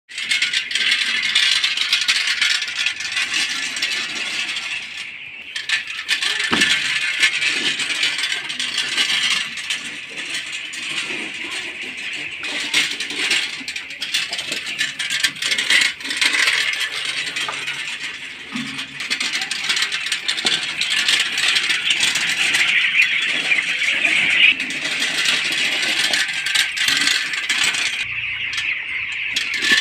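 Hand-pushed poultry litter raking machine, its metal spiked roller rattling and scraping as it rolls through and churns the shed's bedding, with dense small clicks that ease off briefly now and then.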